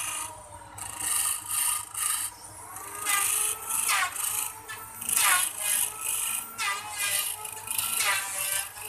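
Hand chisel cutting into a wooden spindle spinning on a lathe: repeated scraping cuts about once a second, some with a falling whistling tone, over the lathe's steady low hum.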